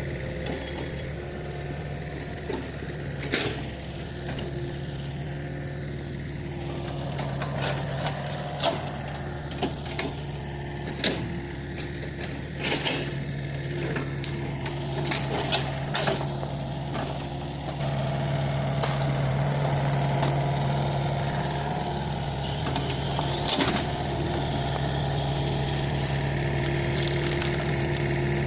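Kobelco SK 50 P mini excavator's diesel engine running steadily under work, with a series of short sharp knocks and clanks in the first half. The engine note grows louder a little past halfway.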